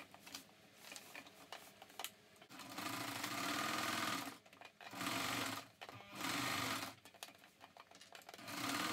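Domestic electric sewing machine stitching through layered fabric and batting in short bursts: after a couple of quiet seconds with a few small clicks, it runs for about two seconds, then three more times briefly with short stops between.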